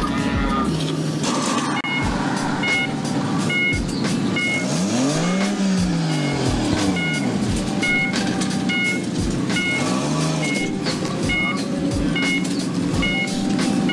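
A car's electronic warning beep sounds a little more than once a second, like a reversing or parking-sensor alert, while a slammed sedan's engine revs up and back down twice as it eases over a kerb edge.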